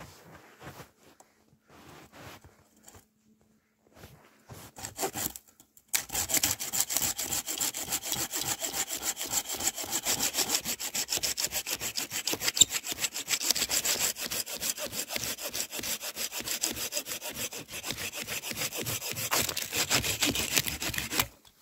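Japanese folding hand saw cutting through a dry, weathered log with fast, even back-and-forth strokes. The sawing starts about six seconds in, after a few faint scrapes and knocks, and stops sharply just before the end.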